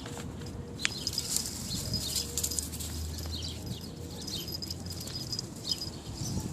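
Small birds chirping: many short, high chirps repeating throughout.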